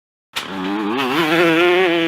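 A drawn-out, bleat-like animal cry begins abruptly out of dead silence about a third of a second in, its pitch wobbling up and down before it settles into a held note.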